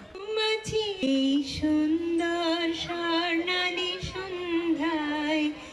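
A woman singing solo into a microphone, holding long notes that waver slightly, with short breaths between phrases.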